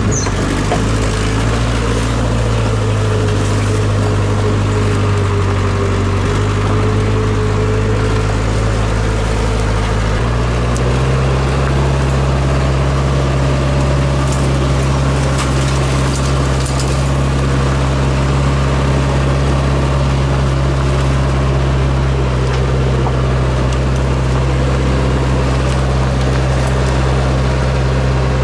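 Land Rover Santana 109's engine running steadily, its note stepping up slightly about ten seconds in.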